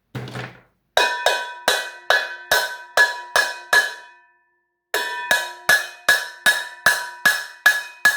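Background music: an even percussive beat of cowbell-like strikes, each ringing at the same pitches, about two a second, with a short break partway through.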